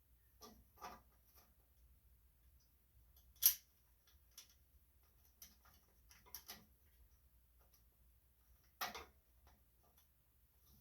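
Faint, scattered small metal clicks and taps from hand-threading small bolts into a small engine's sheet-metal shroud, with a sharper click about three and a half seconds in and another near the end.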